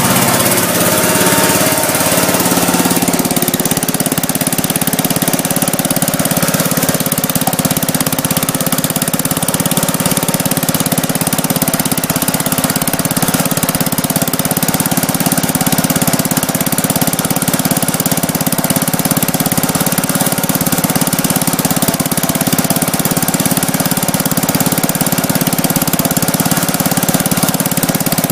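Freshly rebuilt Kohler K241 single-cylinder engine on a Gravely Commercial 10A walk-behind tractor running steadily and loudly just after its first start.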